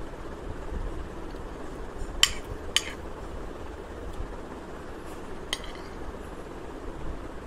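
Metal spoon clinking sharply against a plate three times, twice in quick succession about two seconds in and once more past the halfway point, over a low steady background hum.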